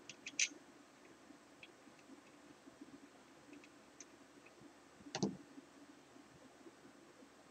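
Small clicks and ticks of hand tools and a metal machine housing being handled on a bench: a few sharp clicks at the start, scattered faint ticks, and a short cluster of knocks about five seconds in.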